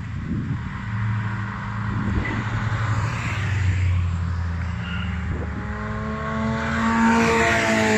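Classic racing cars driving past at speed on a track, their engines running under power. A small Fiat Abarth saloon closes in and passes near, loudest near the end, its engine note falling in pitch as it goes by. Wind buffets the microphone at the start.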